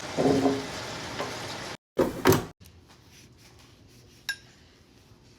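Cooking sounds: a steady hiss like food frying, with utensils knocking on cookware. About two seconds in it cuts off abruptly, followed by a short loud clatter. Then comes a quieter stretch with a single ringing clink of a utensil on a dish.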